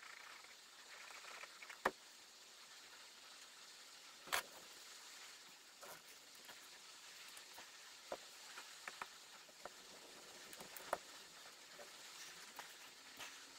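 Scattered light clicks and knocks of small wooden segments being handled and set down on a wooden workbench during a glue-up, over low hiss. The sharpest knocks come about two seconds and four and a half seconds in.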